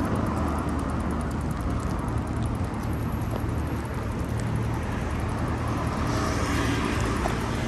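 Road traffic on a busy street: cars driving past, with a vehicle passing closer about six seconds in.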